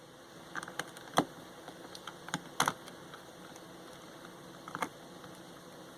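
Scattered light clicks and taps of plastic parts being handled as a headset's housing is opened, the loudest about a second in, over a faint steady background hum.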